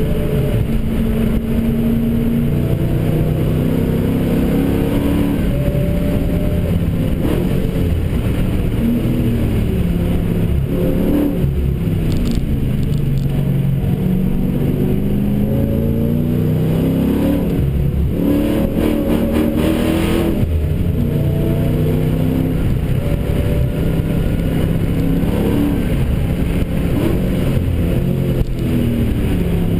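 Vortech-supercharged Dodge Challenger SRT8's V8 engine heard from inside the cabin under hard driving. Its pitch rises repeatedly under acceleration and drops at gear changes and lifts.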